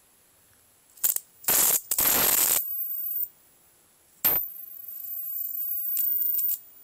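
Flyback transformer of a small black-and-white CRT TV arcing to a screwdriver tip: a click about a second in and two loud bursts of crackling hiss, then from about four seconds in a steady very high-pitched whine with sizzle, which stops just before the end.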